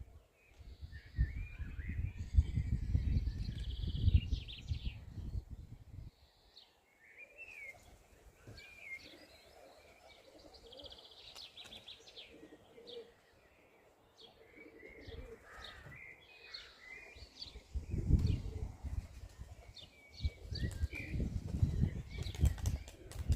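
Birds chirping with short, scattered calls. Gusts of wind buffet the microphone in two stretches, at the start and again near the end.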